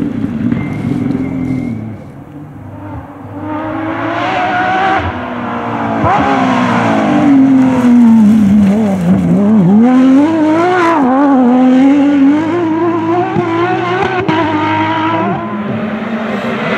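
Rally car engines running hard on a special stage, the revs climbing and falling through gear changes. The sound dips briefly early on, then builds as a car comes closer, with a sharp fall and recovery in pitch near the middle as it lifts off and accelerates again.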